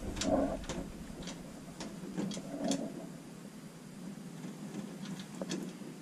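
Light clicks and taps of wiring and plastic connectors being handled inside an open furnace cabinet, scattered irregularly, over a faint steady hum.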